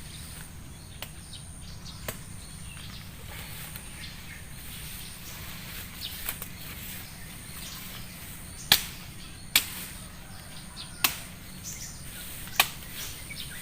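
Sharp chopping strokes of a blade cutting into a tree's wood: a few light strikes, then four hard chops about a second and a half apart in the second half.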